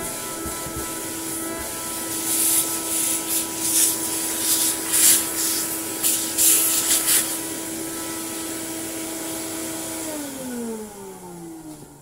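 Orange tub vacuum cleaner running with a steady motor whine, its crevice tool giving loud, uneven sucking hisses for several seconds in the middle as it is worked over dusty vacuum-cleaner parts. Near the end it is switched off and the motor winds down, its pitch falling away.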